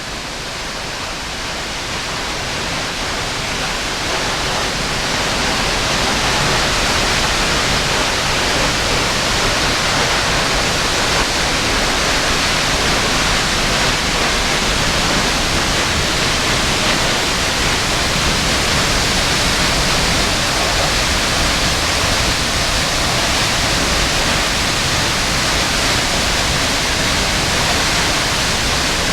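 Waterfall: a steady, loud rush of falling water that grows louder over the first several seconds, then holds even.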